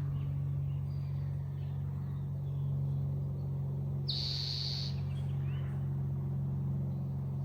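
Birds calling over a steady low hum. One bird gives a bright, buzzy call lasting under a second about four seconds in, followed by a fainter short rising call.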